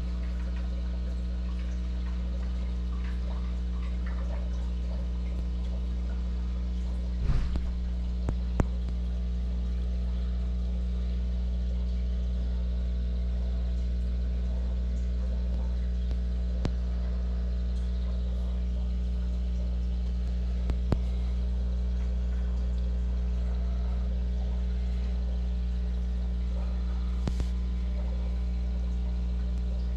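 Aquarium heard with the camera submerged in the tank: a steady low electrical hum from the air pump and filter, with a soft haze of bubbling from air-driven sponge filters. A few light clicks are scattered through it, the loudest a short knock about seven seconds in.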